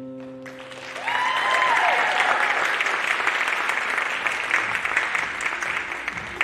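The song's last held note fades out, and an audience breaks into steady applause about half a second in. A single whoop of a cheer rises and falls about a second in.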